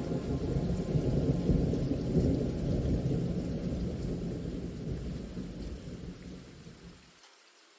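Rolling thunder rumbling over rain, swelling in the first couple of seconds and then slowly dying away. Near the end the rumble cuts off abruptly, leaving only faint rain hiss.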